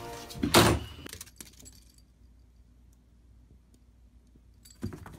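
A brief jingling rattle about half a second in, followed by faint taps and a single thump near the end.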